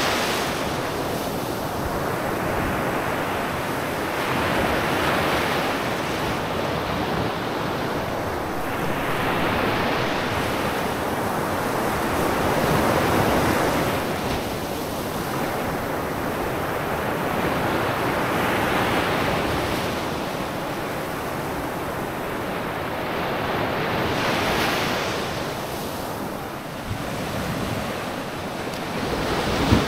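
Sea waves breaking and washing up a sandy beach, the surf swelling and falling back every few seconds, with wind on the microphone.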